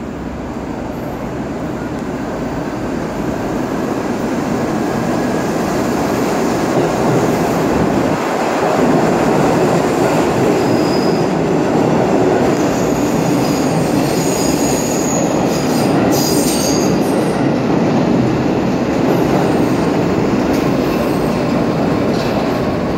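Garbage train of R32 subway cars and an R127 refuse car running through an underground station. The wheels rumble and clack steadily, growing louder over the first several seconds, with a few short high wheel squeals about halfway through.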